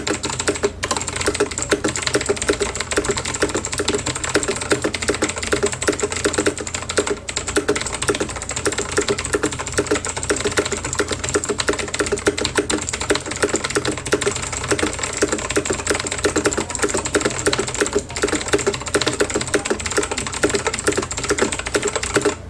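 Very fast, continuous typing on a VAVA Chroma mechanical keyboard with clicky Kailh Blue switches: a dense clatter of key clicks at about 158 words per minute that stops abruptly near the end.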